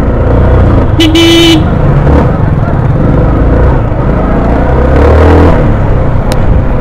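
Motorcycle engine running at low speed, briefly louder about five seconds in, with a single short vehicle-horn toot about a second in. Street chatter is underneath.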